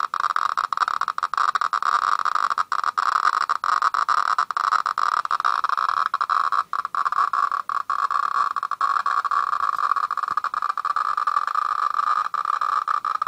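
SV-500 radiation meter's audible count signal, a high, almost continuous beeping buzz broken by short, irregular gaps. The Geiger-Müller tube is counting at a very high rate from the radium-226 in the RZC1031 cold-cathode tube held at the ZP1430 end-window probe.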